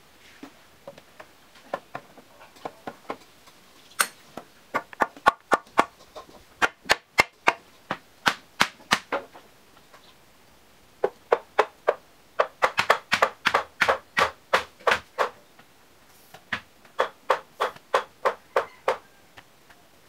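Sharp tool blows on bamboo poles, struck in runs of several, about three to four a second, with short pauses between the runs.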